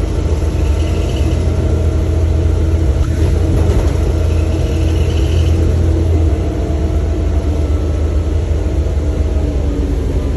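Bus running with a heavy low rumble and a steady whine. The whine slowly drops in pitch over the second half as the overall sound eases a little.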